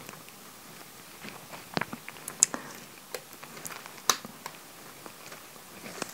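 Faint, irregular small clicks and taps of fingers working flat flex cables into the ZIF connectors on a circuit board.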